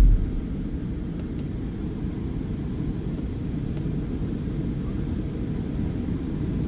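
Steady low rumble of an idling plow truck with its salt spreader running, heard from inside the cab; a loud low hum, the spreader's vibrator, cuts off right at the start.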